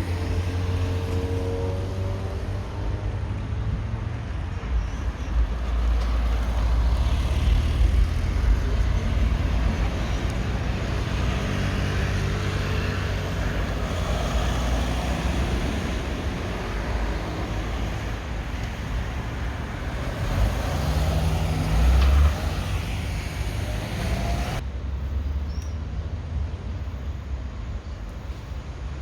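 Outdoor road traffic noise, a steady low rumble of passing vehicles; the sound changes abruptly near the end.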